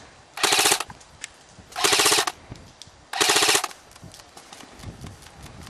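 Airsoft electric rifle firing three short full-auto bursts about a second and a half apart, each a rapid rattle of shots over the whine of the gearbox.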